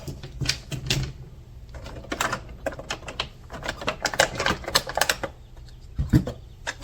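Irregular clicking and clatter of small hardware parts being handled and set down on a hard surface, with a dull thump about six seconds in.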